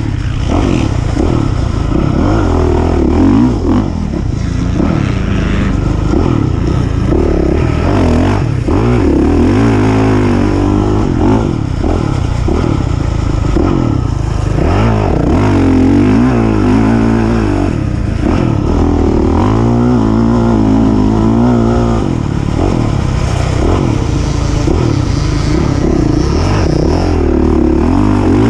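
Engine of an off-road racing machine repeatedly revving up and falling back as it races, the pitch swinging up and down every second or two.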